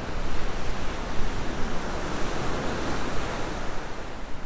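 Loud, steady rush of sea water, a wave-like wash, that starts to fade near the end.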